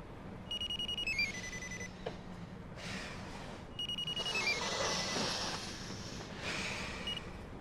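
An electronic alarm tone: a fast-pulsing high beep that steps down in pitch, sounding twice about three seconds apart. Between and after the beeps there is a soft rustle of clothing and fabric as a sleeper stirs.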